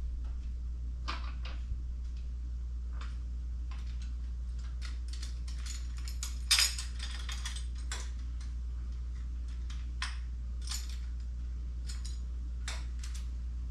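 Small metal hardware clinking and tapping as bolts and jack parts are handled during assembly, with a louder clatter about six and a half seconds in. A steady low hum runs underneath.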